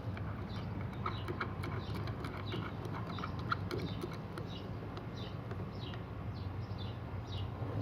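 A few light clicks of small metal parts being handled about one to three seconds in, over a steady low hum, with short high falling chirps repeating about twice a second in the background.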